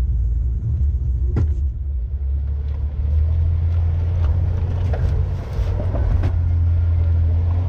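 Off-road 4x4's engine rumbling steadily at low revs as it crawls along a muddy, rutted trail, heard from the hood. A few knocks and clicks over it, the sharpest about a second and a half in.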